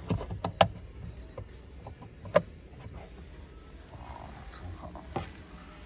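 Sharp plastic clicks and taps as the fold-down bag hooks on a car's interior trim panel are handled and snap back, several in all, the loudest about two and a half seconds in.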